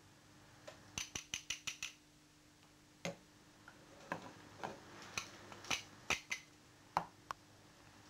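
Light clicks and taps of kitchen utensils, a quick run of about six clicks a second in, then single clicks every half second or so.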